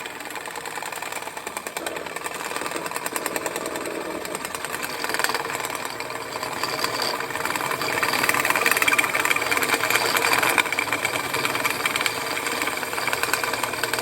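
Electric drill running under load, its large bit cutting a 1¼-inch hole in metal, with a fast, even chatter that grows louder about eight seconds in.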